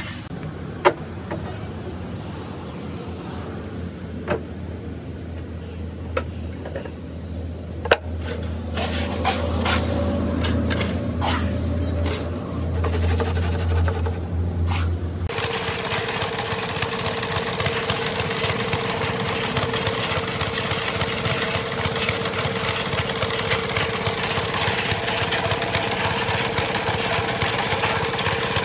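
Scoop scraping and knocking on a steel tile mould: a few sharp clicks over a low hum. About halfway through this gives way to a small stationary engine driving a concrete mixer, a steady running drone with a constant hum and a noisy rush over it.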